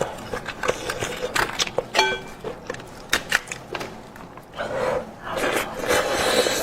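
Close-miked eating: wet chewing and lip-smacking on spicy goat-head meat, a dense run of sharp clicks, with a brief pitched sound about two seconds in and a longer rushing stretch near the end.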